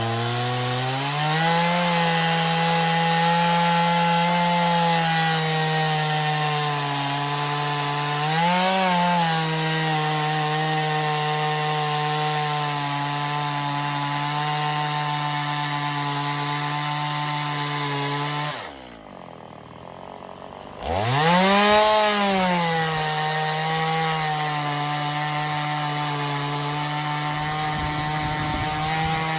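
Chainsaw ripping lengthwise through a log in a chainsaw mill, its engine running steadily under load. About two-thirds of the way through, the throttle is let off and the engine drops to idle for about two seconds, then revs back up and carries on cutting.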